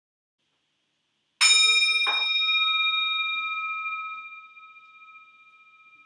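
A bell struck twice in quick succession, its clear tone ringing on and slowly dying away. It is the bell rung as the priest enters to begin Mass.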